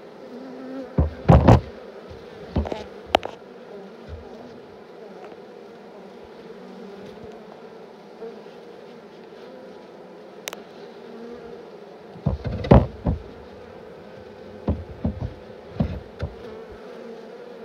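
Swarm of honeybees buzzing in a steady hum around a hive box, with several knocks and bumps, the loudest about a second in and again about twelve seconds in.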